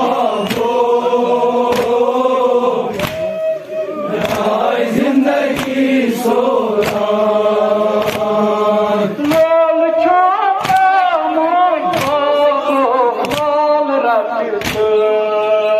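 Crowd of men chanting a Muharram mourning lament (noha) in unison, with hands striking chests in matam all together about every 1.3 seconds.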